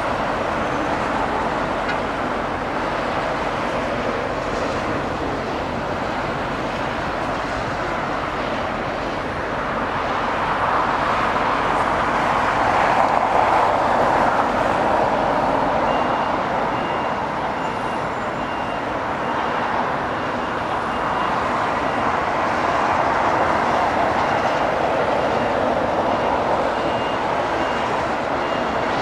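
Jet engines of a Boeing 787 Dreamliner at taxi power, Rolls-Royce Trent 1000s. They make a steady rushing hum that swells about halfway through as the engine passes nearest, and again near the end.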